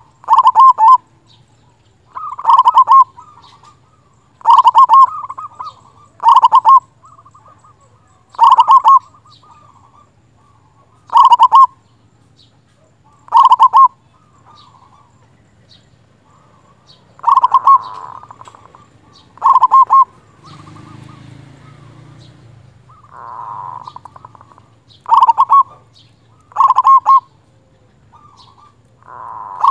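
Zebra dove (perkutut) cooing loudly: a string of short, stuttering coo phrases about every two seconds, with a longer pause partway through.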